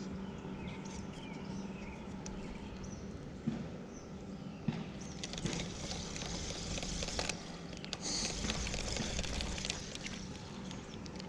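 Quiet outdoor ambience with a few light knocks and clicks, and a louder stretch of hiss about eight seconds in.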